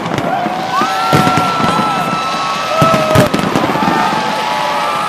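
Fireworks display going off: a string of sharp bangs, the loudest pair about three seconds in, with several long high whistles that slide up, hold and drop away over the top.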